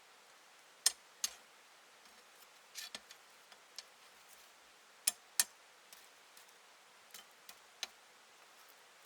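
Sharp, irregular clicks and snaps over a quiet background, loudest as a close pair about a second in and another pair about five seconds in.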